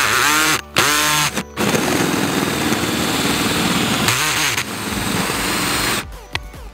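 Cordless drill driving a one-inch hole saw through a thin metal plate backed by plywood. It makes a few short starts, the motor whine rising each time, then cuts steadily with a grinding sound for about four seconds and stops about six seconds in.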